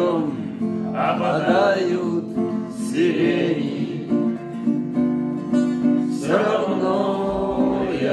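Background song: strummed acoustic guitar with a singing voice.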